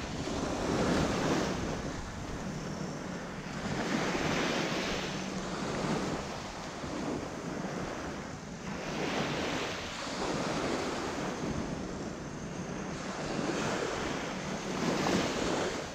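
Surf breaking and washing up the beach, swelling and easing every two to three seconds, with wind rumbling on the microphone.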